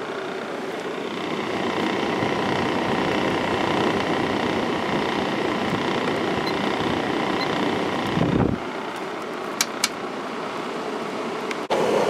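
Fan of a 1995 Kenmore 5,450 BTU window air conditioner running on low speed with the compressor off, its GE PSC fan motor and blower giving a steady air noise. A brief low rumble comes about eight seconds in, two sharp clicks follow, and the sound drops out for an instant near the end.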